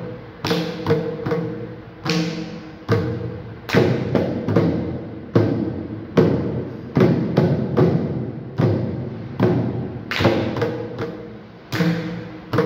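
Two mridangams played together with bare hands in a rhythmic pattern of sharp strokes, each stroke ringing on with the drum's tuned pitch.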